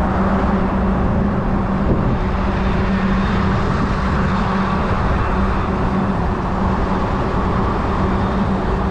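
Steady running noise of a moving road vehicle: a constant low hum over road noise.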